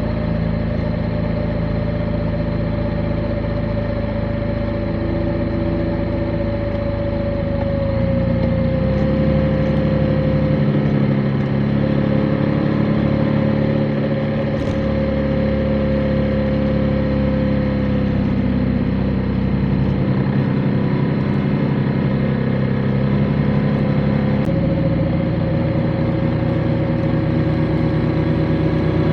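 Motorcycle engine running under way, heard from on the bike. It holds a steady, even note, and the note changes abruptly about eight seconds in and again near the end as the throttle or gear changes.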